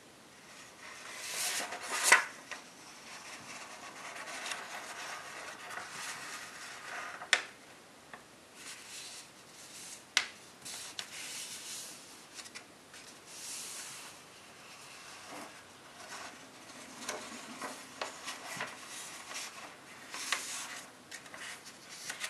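A sheet of copper tissue foil being handled and folded by hand: rustling and rubbing as it is flexed and creases are pressed flat, with a few sharp crackles, the loudest about two seconds in.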